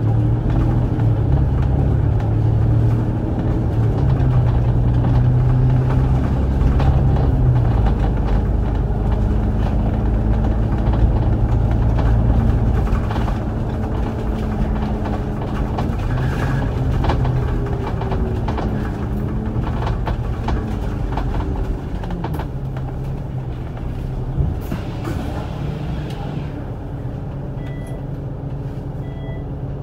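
A franchised city bus's engine and drivetrain running under way, heard from inside the passenger cabin. The low engine hum is loudest in the first half; its pitch shifts up and down through the middle, and it eases off gradually toward the end.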